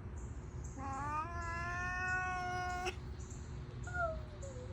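A frightened cat yowling: one long drawn-out call that rises and then holds, then a shorter call near the end that slides down in pitch.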